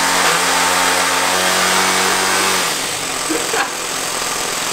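Toyan four-stroke model engine running steadily on a modified Nerf flywheel blaster, driving the dart flywheels through a belt. About two-thirds of the way in its even note breaks up and falls quieter, and a short knock follows. The engine turns the flywheels at low rpm, too slow to throw the darts far.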